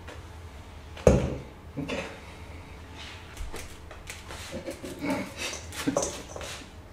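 Kitchen knife cutting through sukuma wiki (collard green) leaves held in the hand over a stainless steel bowl, a run of short crisp cuts, with a sharp knock about a second in.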